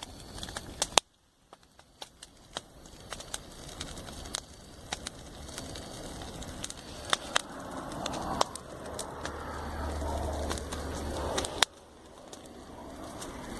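Wood campfire crackling, with frequent sharp pops and snaps over a soft background rush. The background drops away suddenly about a second in, then slowly builds, with a low steady hum added in its second half, before cutting out abruptly near the end.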